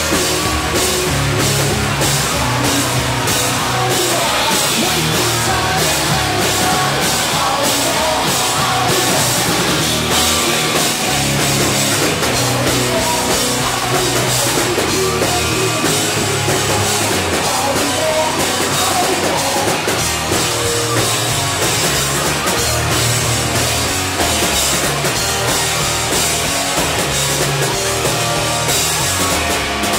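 A live rock band playing loudly: drum kit, electric bass and electric guitar.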